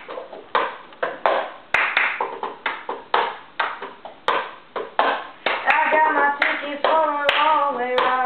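Cup-game rhythm: hand claps alternating with a plastic cup knocked and slapped, about two to three strokes a second. About five and a half seconds in, a voice starts singing a melody over the rhythm, ending on a held low note.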